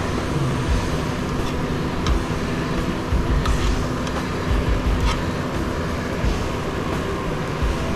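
Cutters snipping through the copper winding leads of an industrial electric motor, a sharp clip now and then about 2, 3.5 and 5 seconds in, over steady rumbling handling noise.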